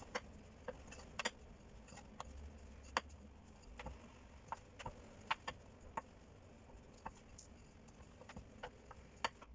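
Wooden rolling pin rolling dough on a wooden cutting board: faint, irregular clicks and light taps as the pin knocks against the board, over a low hum.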